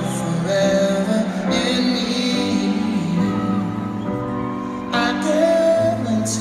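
Live slow piano ballad: sustained piano chords over a low bass line, with a man singing the melody.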